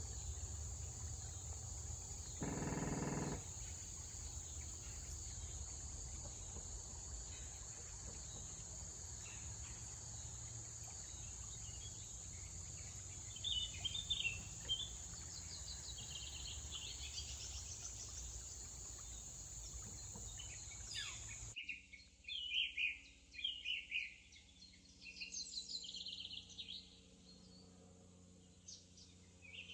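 Steady high-pitched insect chorus with scattered bird chirps, over a low rumble, and a short low tone about three seconds in. About two-thirds of the way through the buzz and rumble cut off abruptly, leaving a run of quick bird chirps and calls.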